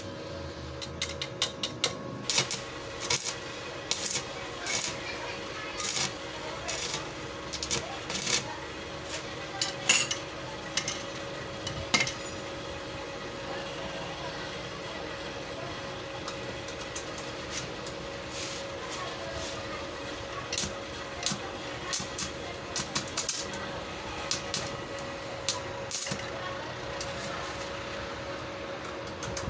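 Irregular metallic clinking and scraping of hand tools working on a motorcycle sidewheel hub, busy for about the first twelve seconds, easing off, then busy again later, over a faint steady hum.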